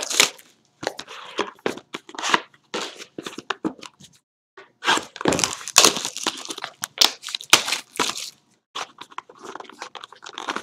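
Plastic shrink wrap and cardboard being torn and crinkled as a sealed box of trading cards is opened by hand: a run of irregular rips and crackles, with a short pause about four seconds in.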